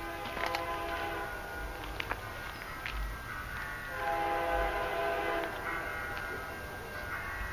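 Distant diesel freight locomotive's air horn sounding two long chime blasts, a couple of seconds apart, as the train approaches; the second blast is louder.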